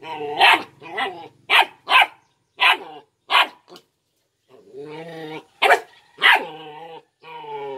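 Belgian Malinois puppy barking in short sharp yaps mixed with longer growls while play-fighting, with a brief pause about halfway through.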